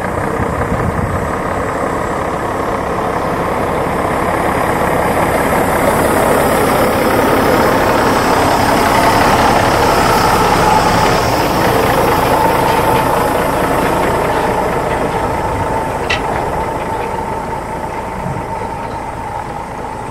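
Heavy diesel truck driving slowly past close by, its engine and tyres growing louder to a peak about halfway through and then fading away.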